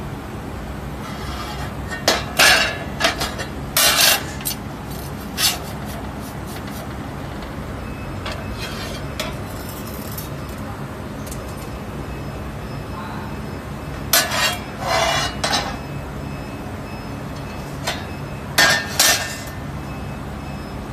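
Laser-cut 3 mm mild steel plates clanking and clinking against each other and the cutting bed's steel slats as they are picked up and turned, in scattered clusters, over a steady low hum.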